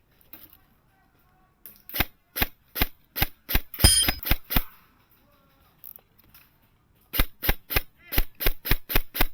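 Airsoft rifle firing repeated single shots, about three a second, in two strings with a pause of a couple of seconds between them.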